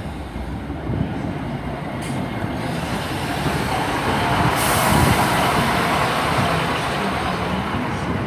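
Class 153 diesel railcar with a Cummins underfloor engine rolling slowly into the platform, its engine and wheel noise growing as the cab passes close by. About four and a half seconds in, a sudden hiss of air starts, typical of the air brakes as it slows to stop.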